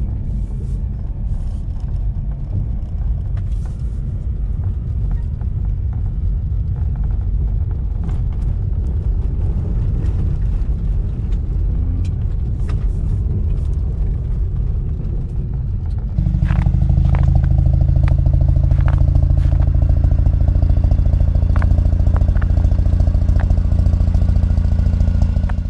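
Mazda RX8's two-rotor rotary engine and tyre noise heard from inside the cabin while driving on a snowy road, a steady low rumble. About 16 seconds in it cuts to a louder, steadier engine sound with a few sharp clicks.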